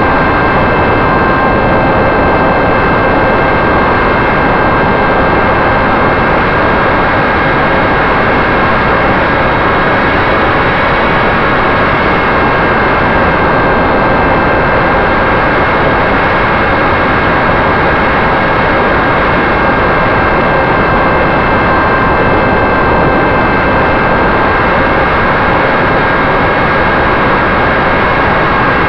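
Wing-mounted propeller and motor of a radio-controlled model airplane running steadily in flight, a constant whine at unchanging pitch over heavy wind rush on the onboard microphone.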